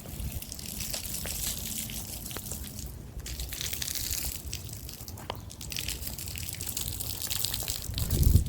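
Splash pad water jets spraying and splashing, a steady hiss that thins briefly about three seconds in. A low rumble rises near the end.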